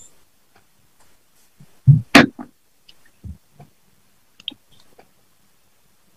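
Mostly quiet, with a few brief, scattered clicks and soft thumps; the loudest, a low thump and a sharp click, comes about two seconds in.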